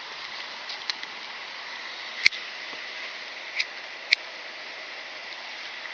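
Steady outdoor background hiss with a few short sharp clicks, the loudest a little over two seconds in and two more close together about a second and a half later.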